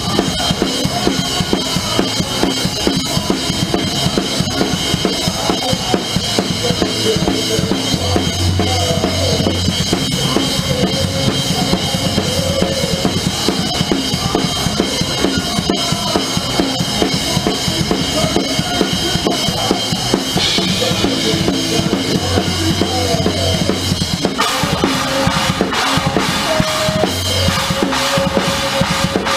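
Live hard rock / heavy metal band playing, heard through a drum-cam microphone with the drum kit loudest: a busy pattern of kick-drum and snare hits over the rest of the band.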